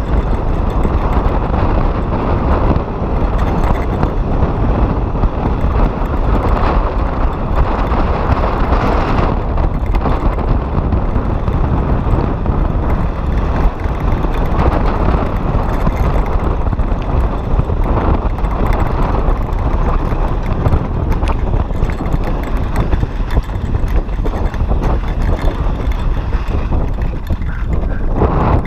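Mountain bike riding fast down a loose, dusty dirt trail: wind buffeting the rider-worn action camera's microphone over a continuous rumble of tyres on gravel, with fast clatter from the bike and stones.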